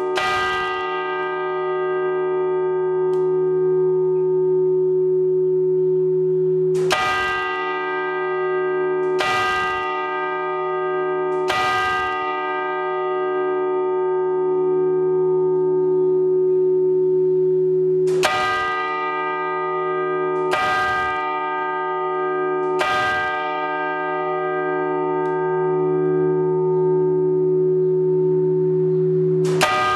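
Large 1880 church bell struck by an electric hammer, heard close up in the belfry. There is a loud stroke near the start, then two sets of three strokes a couple of seconds apart, and another stroke near the end. Each stroke rings on into a long humming tone that never dies away between strokes.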